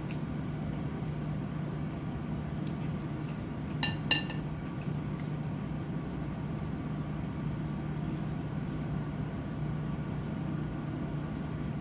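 Two quick clinks of tableware about four seconds in, ringing briefly, over a steady hum of room machinery.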